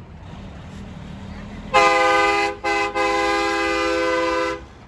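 Truck air horn sounding a chord of several tones: a short blast, a very brief toot, then a longer held blast of about a second and a half that stops abruptly.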